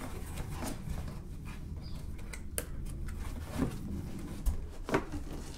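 Cardboard box and wrapped parts being handled during unpacking: faint rustling of packaging with a few light clicks and knocks, over a low steady hum.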